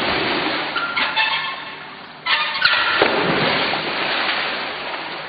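Water splashing hard as a swimmer thrashes across a swimming pool. A fresh loud surge of splashing comes a little over two seconds in, then slowly dies away.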